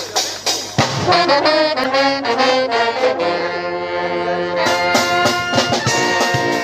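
Street brass band playing live: trombones and trumpets over drum hits, with a held chord for a second or so about three seconds in before the beat picks up again.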